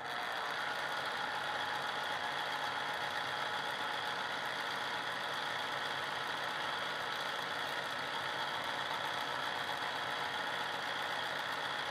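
Cuisinart Pulp Control citrus juicer's electric motor running steadily in its fast-spin mode, set off by pressing the cover down. It spins the pulp in the sieve to draw out the last of the juice.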